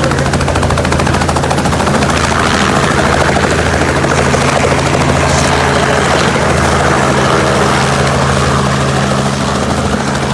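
Helicopter running steadily, its rotor beating in a fast, even chop over a constant engine drone.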